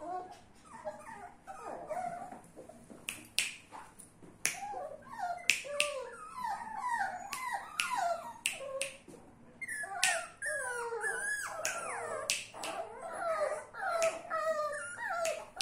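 Fox terrier puppies whimpering and whining in many short, high squeaks that rise and fall, over and over, with sharp clicks scattered among them.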